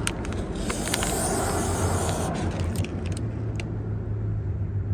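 Spray bottle squirting soapy water onto a freshly plugged tire to check for leaks: a few quick trigger clicks and hissing sprays in the first few seconds, over a steady low hum.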